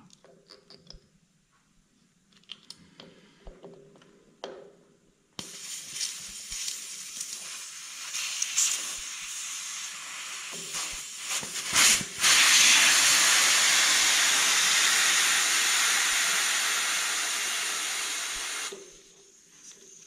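Air hissing out through the valve of a Muck Truck power barrow's pneumatic tyre as it is partly deflated. After a few small clicks of handling the valve, the hiss starts about five seconds in, gets louder after a sharp click about halfway through, and stops a little before the end.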